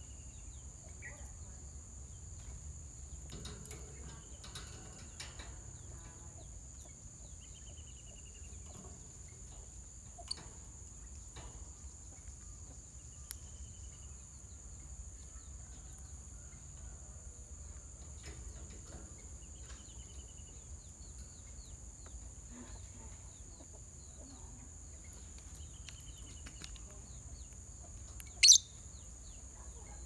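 Caged lovebirds giving short chirps every few seconds over a steady high insect drone, with one sharp, loud shriek near the end.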